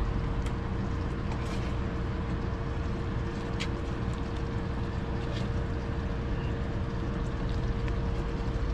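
A steady machine hum with one constant tone runs throughout. Over it come a few faint clicks of a utensil on the glass dish as sweet and sour sauce is spooned over fried fish.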